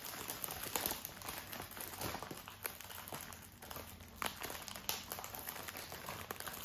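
Faint crinkling of the small plastic packets of diamond-painting drills being handled, with a few light clicks and taps.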